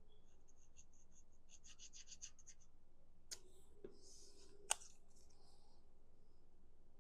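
Faint handling of cardstock paper pieces: a run of quick light crinkling ticks, then a few sharp clicks, the loudest a little past the middle, with brief rustling around it.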